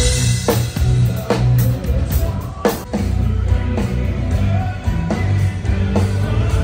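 Rock band playing live at a sound check: drum kit hits with cymbals, electric guitar and a heavy bass line.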